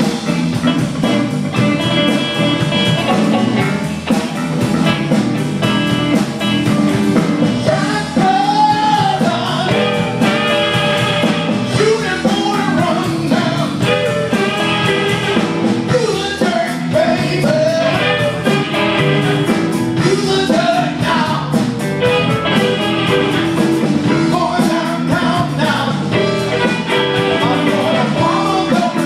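Live blues band playing a rock-and-roll style blues number: electric guitars, bass and drum kit keeping a steady beat, with a lead melody line that bends in pitch over the top.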